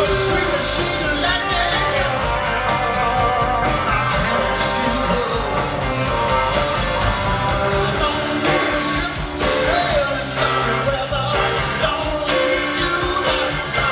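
Live rock band playing with a man singing, guitars and drums loud and continuous.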